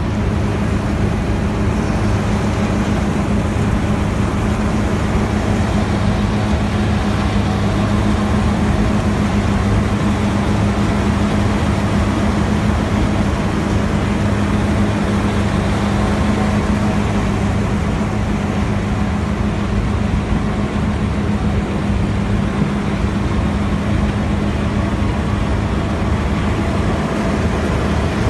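Tractor-driven patoz (threshing machine) running steadily, a loud continuous mechanical drone with a constant low hum and no change in speed.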